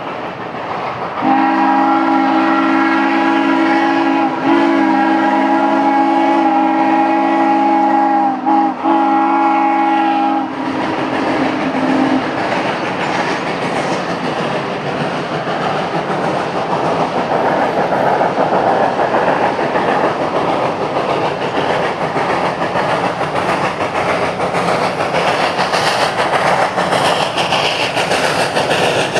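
Steam locomotive whistle blowing one long chord blast of about nine seconds, with a brief dip near its end. Then the 2-8-0 steam locomotive's running noise grows steadily louder as it approaches.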